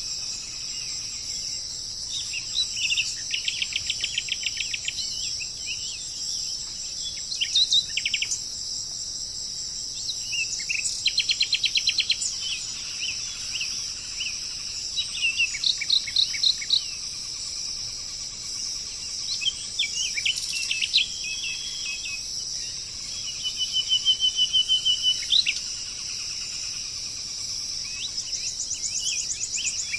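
Wild birds singing, with several short bursts of rapid trills and sharp chirps, over a steady high-pitched drone of insects.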